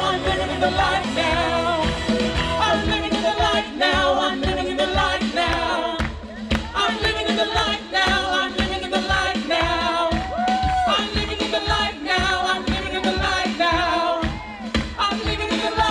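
Worship band playing a gospel song with singers, over a steady drum and bass beat.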